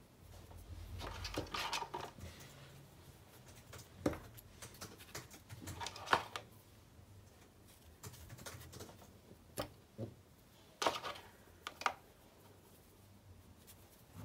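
Straws and pipe cleaners being handled and threaded together on a tabletop: soft rustling with a handful of light, sharp taps and clicks as the straws knock together.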